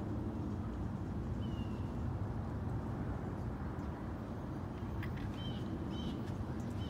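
Steady low outdoor background rumble. Over it, a few short, high, falling bird chirps: one about a second and a half in, and three in quick succession near the end.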